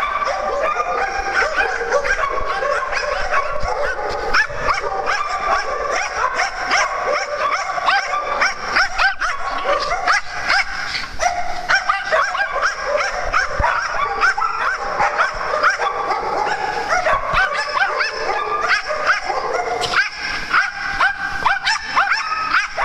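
Several dogs barking and yipping at once: a continuous chorus of short, overlapping barks with no pause.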